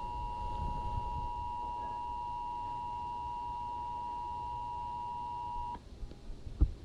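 Emergency Alert System attention signal: a steady two-tone beep held for several seconds, then cut off sharply, followed by a click near the end.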